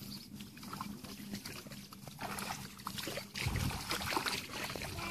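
Bare feet and hands sloshing and splashing in shallow muddy paddy water, with small irregular splashes and drips. A louder low rumble comes in about three and a half seconds in.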